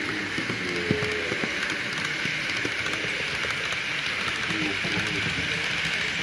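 Model freight train running past on its track: a steady rushing hiss of the wagons' metal wheels on the rails, with scattered light clicks.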